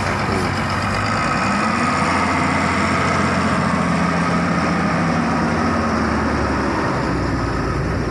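Diesel engine of a Titian Mas intercity coach pulling away at low speed, running steadily, its note rising slightly about two seconds in as it gathers speed.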